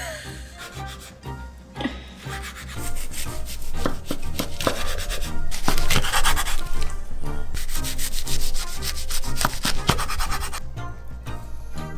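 Chef's knife sawing through a laver-wrapped gimbap roll on a wooden cutting board: a dense run of crackles as the blade cuts through the dried seaweed sheet, loudest from about three seconds in until near the end. Soft background music plays underneath.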